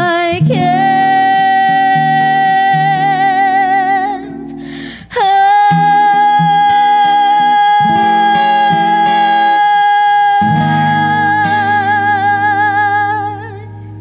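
Female voice singing two long held notes with vibrato over strummed acoustic guitar chords, with a short breath between them about five seconds in. The voice fades out near the end, leaving the guitar.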